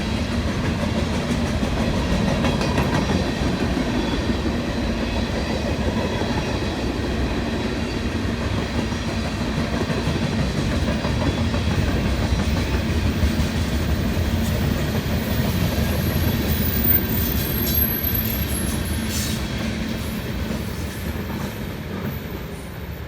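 A CSX manifest freight train's cars rolling steadily past on the rails, the sound easing off toward the end as the train goes by.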